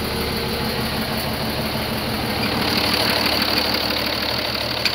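Ursus 1222 tractor's four-cylinder diesel engine running steadily, slightly louder in the middle of the stretch, with a single sharp click near the end.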